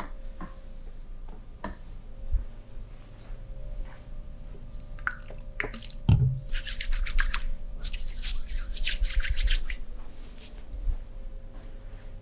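Quick back-and-forth rubbing or brushing strokes in two runs of a second or two each, from about halfway through, with a short third run after, as the massage works over the body. Light taps and handling clicks come before, and a dull thump just before the first run.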